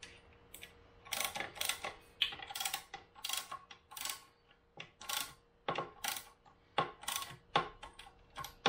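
Small hand ratchet clicking in short bursts as bolts are tightened down, about a dozen strokes with brief pauses between them.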